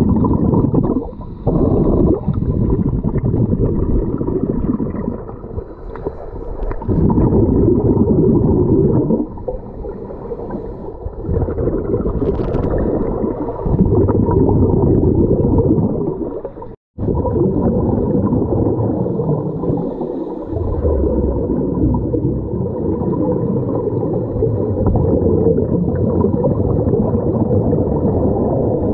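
Muffled underwater noise of scuba divers breathing through their regulators, the bubble noise coming in loud surges of a few seconds with quieter gaps between. The sound cuts out for an instant about seventeen seconds in.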